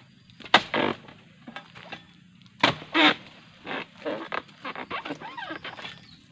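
A harvesting tool's blade chopping into the base of a low oil palm to cut free a ripe fruit bunch: a series of sharp hits, the loudest in two pairs, one about half a second in and one about two and a half seconds in, with lighter knocks after.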